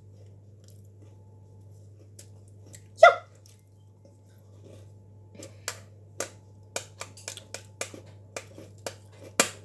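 An egg tapped against the rim of a bowl to crack it. There is one ringing knock about three seconds in, then a run of light taps, about two a second, ending in a harder tap that punches a large hole in the shell.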